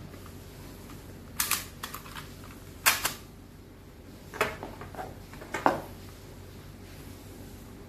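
Plastic clicks and snaps from a ROCKBROS phone holder's spring-loaded clamp arms being worked by hand: several sharp clicks, loudest about three seconds in and again near six seconds.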